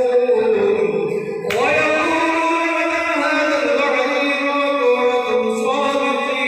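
Men's voices chanting a devotional recitation together in unison, in long held melodic lines; the pitch rises about a second and a half in.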